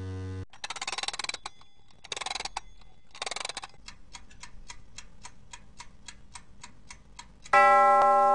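Clock sound effect for an animated logo: three short bursts of rapid clicking, then steady ticking at about four ticks a second, then a single loud bell chime strikes near the end and rings on.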